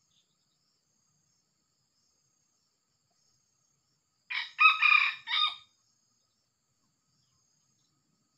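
Red junglefowl rooster crowing once, a short call of three or four linked syllables a little past halfway.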